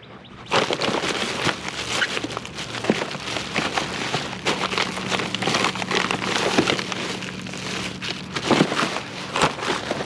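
Household junk being rummaged through by hand: dense rustling and crinkling with many small clicks and knocks.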